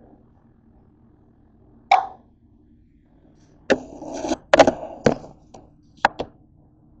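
Handling knocks and bumps as the camera is moved and set down on a kitchen counter: one sharp knock about two seconds in, a cluster of knocks and rubbing about four to five seconds in, then two quick clicks near the end, over a faint steady low hum.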